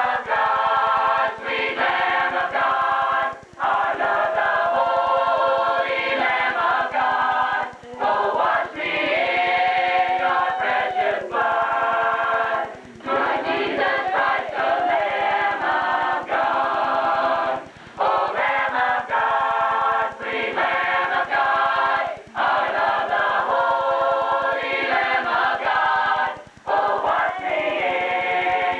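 Mixed choir of men's and women's voices singing in harmony, phrase after phrase with short breaks between them.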